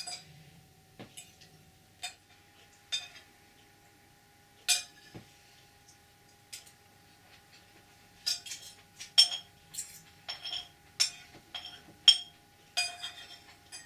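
Cardboard camera box being handled and its flaps folded shut. This gives a run of sharp clicks and crinkles, scattered at first and coming thick and fast in the second half, over a faint steady high hum.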